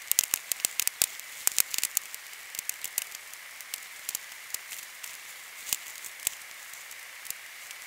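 Lithium strip from a battery reacting with poured water under dry grass, crackling and popping in irregular sharp snaps as the grass catches fire. The pops come thickest in the first two seconds, then thin out.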